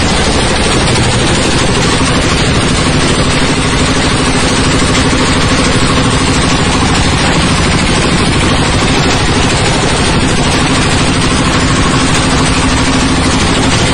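Coconut husk decorticator (coir fibre shredding machine) running loud and steady, its rotor shredding husks into fibre with a dense, continuous clatter over a steady low hum.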